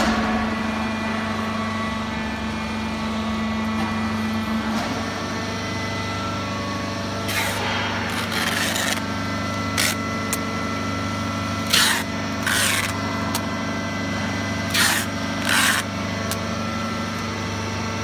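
Steady hum of running workshop machinery, one of its tones dropping out about five seconds in. Over it, several short sharp rips, mostly in pairs, from about seven to sixteen seconds in: packing tape pulled off a hand dispenser to seal plastic-bagged corn-cob bales.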